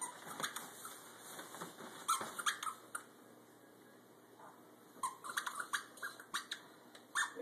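Faint scattered rustles and clicks from the nylon fabric of a pop-up play tent and crawl tunnel being moved about, with a quiet stretch in the middle.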